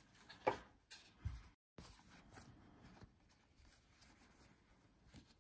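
Hands handling a silk bag and a cloth dust bag from a card-case box. There is a short sharp rustle about half a second in, a soft thump a little later, and a brief moment where the sound cuts out entirely, then faint rustling of cloth.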